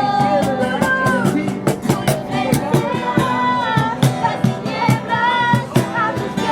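Worship music: voices singing held, gliding notes over instrumental backing with a steady percussive beat.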